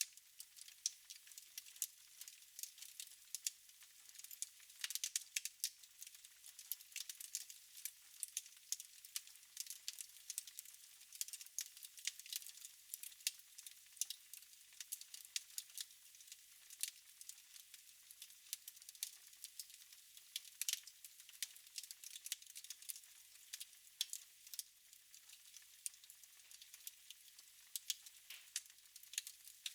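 Wood fire crackling in a fireplace: a steady, irregular run of small pops and snaps over a soft hiss, with an occasional louder snap.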